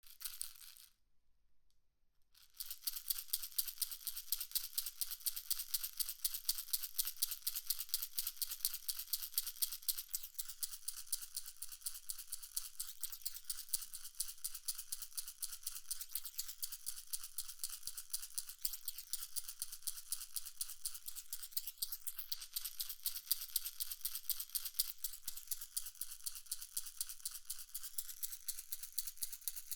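Rapid, scratchy train of high-pitched noise clicks used as a binaural test signal, run through a synthetic-HRTF 3D panner. Its tone colour shifts with sweeping notches as the panner moves it around the head. It starts about two and a half seconds in.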